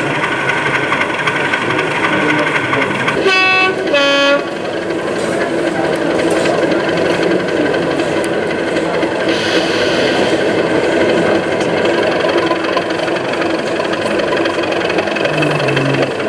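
Two-tone train horn sounded from a sound-fitted model locomotive: a short higher note, then a lower one, about three to four seconds in. Under it a steady, busy din continues throughout.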